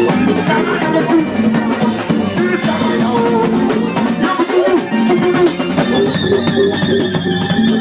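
A live band playing loudly, with a drum kit keeping a steady beat under guitar.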